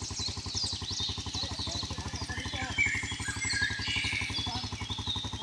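Small motorcycle engine idling with a fast, even beat, while birds chirp over it.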